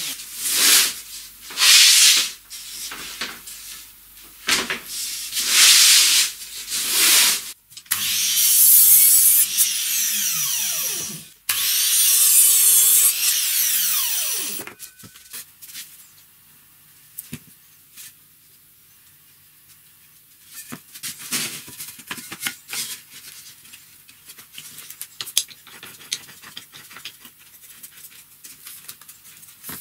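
Several loud rubbing strokes on wood, then a Metabo mitre saw running twice for a few seconds each, its blade pitch falling as it winds down after each cut. After that come only quiet knocks and clicks of wood being handled.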